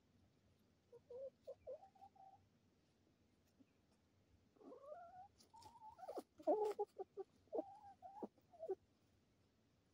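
Chickens calling close by: a few short clucks about a second in, then a longer run of calls that slide up and down in pitch, with a few sharp clicks among them.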